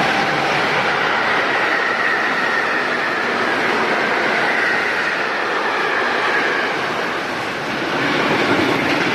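Freight train of tank wagons and car-carrier wagons running past close by at speed, a loud, steady rolling rumble and rattle of wheels on rail.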